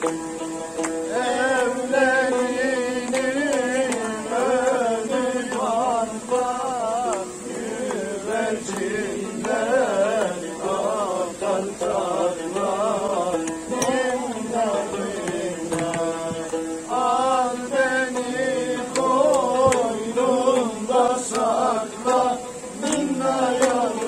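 Music: a solo voice singing a wavering, ornamented melody over instrumental accompaniment with drum strikes.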